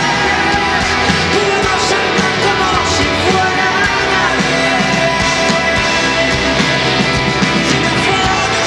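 Live rock band playing loud and steady, with electric guitars, drums and a singer's voice.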